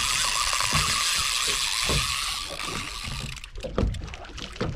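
Daiwa Saltiga spinning reel's drag buzzing steadily as a big fish pulls line off the spool, fading out about three seconds in; a few short knocks follow.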